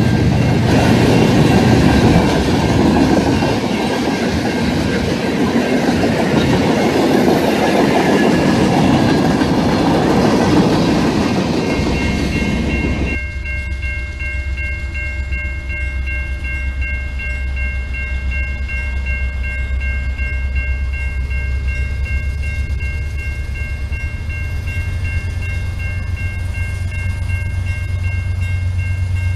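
Freight cars rolling past, wheels clattering and rumbling on the rails. About 13 s in the sound changes abruptly to the low rumble of CN diesel locomotives, with a steady high ringing tone over it.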